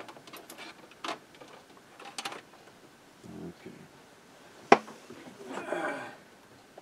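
Scattered clicks and knocks of equipment being handled and set up on a workbench, the sharpest click about four and a half seconds in.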